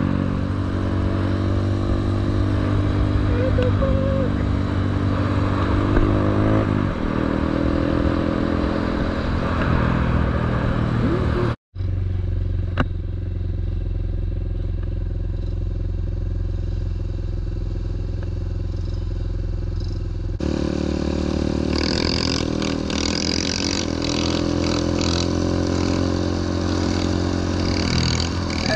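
Honda Grom's small single-cylinder engine running steadily under way, with rushing noise over it. The engine note steps to a new pitch about a quarter of the way in, and the sound cuts out for an instant near the middle.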